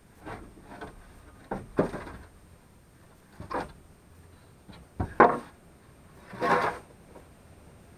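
Irregular scraping and knocking as a person crawls and works on the dirt floor of a crawl space under a house: about six short scrapes, the sharpest and loudest a little after five seconds in, and a longer scrape about a second later.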